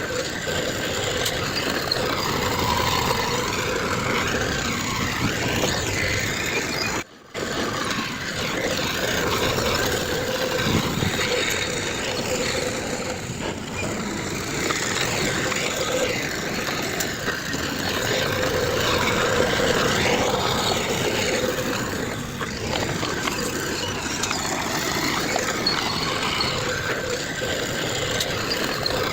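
Engines of heavy earthmoving machinery running steadily, with a brief break about seven seconds in.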